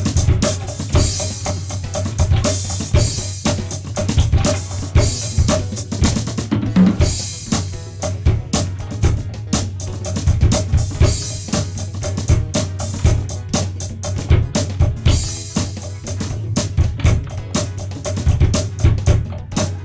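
Drum kit played in a steady, continuous rhythm of kick and snare hits, recorded direct into the computer.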